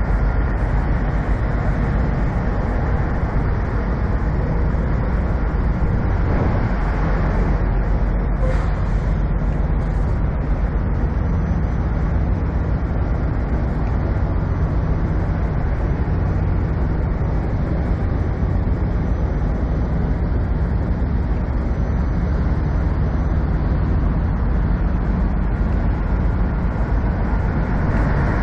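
Diesel semi truck engine idling, a steady low rumble that holds even throughout.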